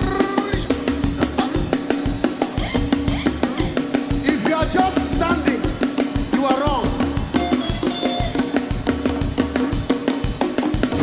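Live upbeat gospel praise music: a drum kit keeps a fast, steady beat under a long-held low note, with voices singing or calling out briefly a few times.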